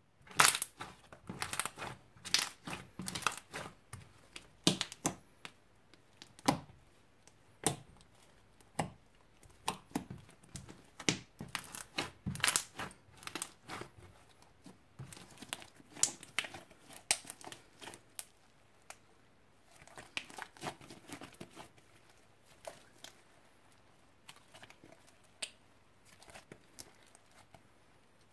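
Thick slime being kneaded, pressed and stretched by hand, making many sharp, irregular clicking and popping sounds. The pops come thick and fast at first and thin out after about two-thirds of the way through.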